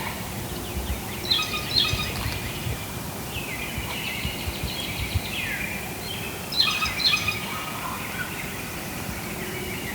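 Wild songbirds singing. Their repeated whistled phrases include several that slide downward, and there are louder bursts of rapid notes about a second and a half in and again about seven seconds in.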